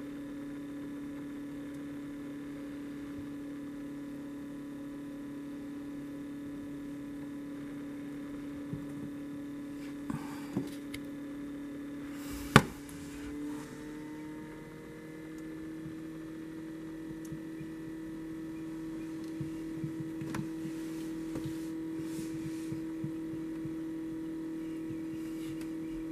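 Steady electrical hum of an egg incubator's fan motor, with one sharp click about halfway through, after which the hum's pitch steps up slightly. A few faint ticks are scattered through it.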